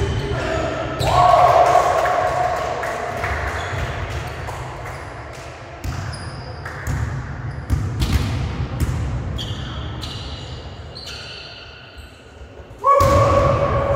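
Indoor volleyball being played: repeated sharp hits and thuds of the ball, with players' shouts and short high squeaks, echoing in a large sports hall. A loud call breaks in near the end.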